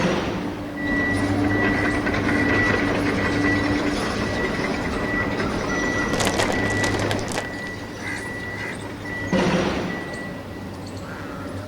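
A small motor running with a steady high whine, with a quick run of rattling clicks about six seconds in.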